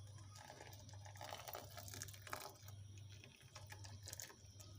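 Faint pouring and trickling of hot liquid jelly from a pan into a bowl of chopped strawberries, with a few small clicks, over a low steady hum.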